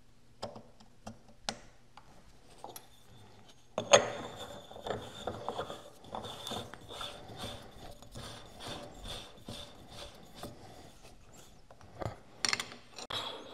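Metal parts of a tap-sharpening fixture on a tool and cutter grinder being fitted and turned by hand. A few light clicks, then a sharp metal clunk about four seconds in, followed by a run of quick ticking and rubbing metal-on-metal sounds and more clicks near the end.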